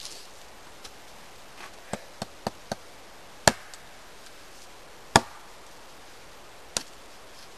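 Small axe chopping into an upright wooden pole: a faint knock, then four lighter strikes in quick succession about two seconds in, two heavy blows a little under two seconds apart, and one lighter strike near the end.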